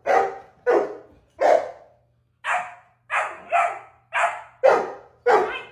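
A dog barking repeatedly: about nine short, sharp barks, roughly one every half second to second, with a brief pause about two seconds in.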